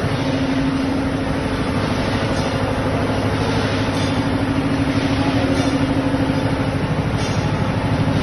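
Double-decker de-airing pugmill running steadily while extruding clay: a constant machine drone from its motor and drive, with a fast, even pulse.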